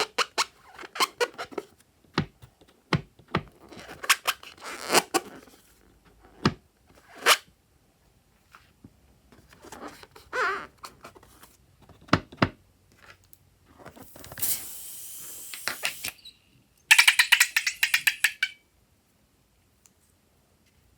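Close-up handling sounds of slime making with balloons: scattered clicks and taps, a hiss lasting about two seconds partway through, then a loud burst of rapid clicking for about a second and a half.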